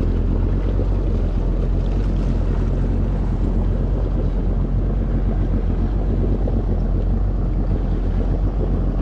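Jet ski engine running steadily, a low even drone, with wind noise on the microphone.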